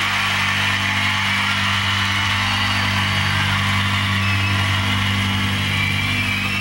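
Steady low mechanical drone with a hiss above it, like an engine running, unchanged throughout.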